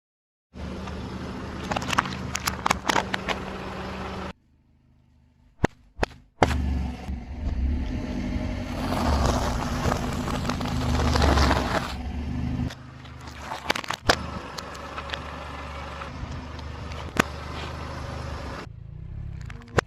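Car engine running low and steady as a tyre rolls slowly over objects, with crackling and sharp snaps and a louder stretch of crunching partway through. The sound changes abruptly several times, as separate clips are cut together.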